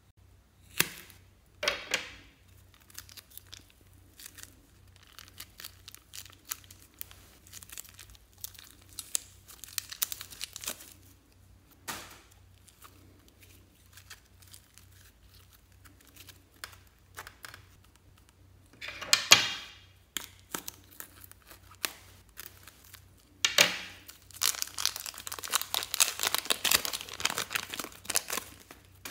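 Plastic piping bags crinkling and tearing as they are cut and peeled off soft slime, with a couple of sharp scissor snips near the start. There is a loud rip about two-thirds of the way in, then a dense run of crackling plastic near the end.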